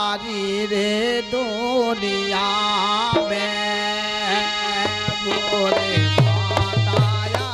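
A man singing a Hindi folk devotional song with wavering, held notes over a steady harmonium drone. About five seconds in a hand drum comes in with deep, pitch-dropping strokes at roughly two to three a second.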